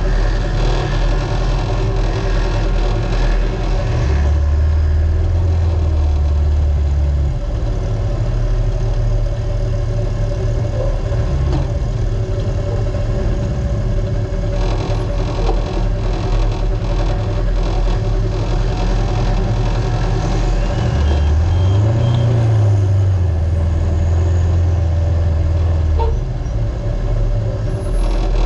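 A Polaris RZR UTV racing flat out over desert terrain, its engine running hard under a constant wash of wind, tyre and chassis noise. The engine note drops lower and heavier twice, about four seconds in and again about twenty-one seconds in.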